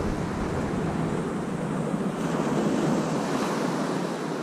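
Small waves breaking and washing up the beach, a steady hiss of surf, with a low rumble underneath that dies away near the end.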